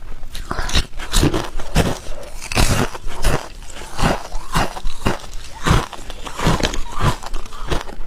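Hard clear ice being bitten and chewed: a quick, irregular run of sharp cracks and crunches, several a second.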